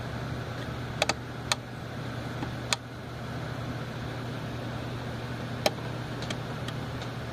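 Several sharp clicks from the control knob of a 1964 GE tube clock radio being turned to switch the set on, over a steady low hum.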